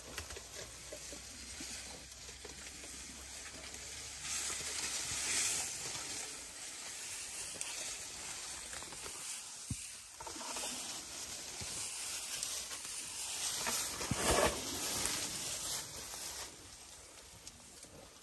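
An African elephant toppling a small tree with its trunk: branches and dry brush rustle and scrape, with a few sharp cracks, coming in several louder surges.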